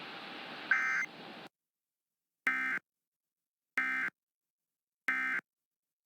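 Emergency Alert System End of Message (EOM) data bursts: short, harsh, buzzing two-tone digital squawks that mark the end of the alert. Four bursts in all: the first over a faint hiss that cuts off soon after, then three evenly spaced about a second and a half apart with silence between.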